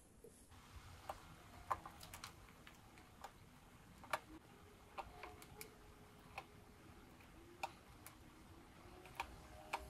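Faint, irregular small clicks and ticks, about a dozen spread unevenly, of wire leads being pushed into a solderless breadboard while the emitters of the NPN transistors are jumpered to the negative rail.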